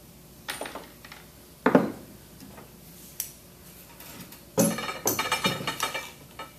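Stainless steel chemical injection pump parts knocking and clattering as they are handled and set down on a workbench: a few sharp knocks, the loudest about a second and a half in, then about four and a half seconds in a rattling clatter with metallic ringing.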